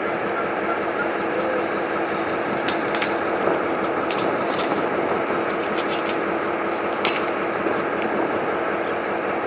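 G22 diesel-electric locomotive running steadily while shunting, its engine giving a constant hum, with several short sharp metallic knocks in the middle stretch.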